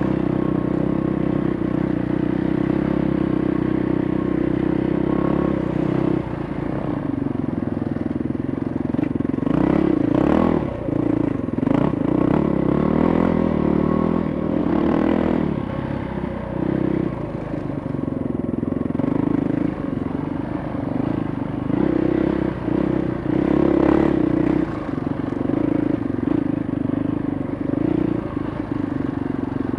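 Dirt bike engine running while riding, its pitch shifting up and down with the throttle. In the middle there is a stretch of knocks and rattles as the bike jolts over the rough dirt track.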